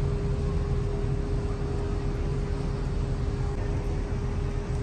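Steady low rumble of outdoor city noise, with a constant mid-pitched hum.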